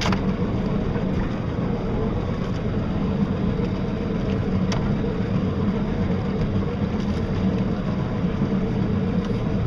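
Small battery-powered boat under way in rolling waves: a steady rush of water and wind noise with a low, even hum underneath.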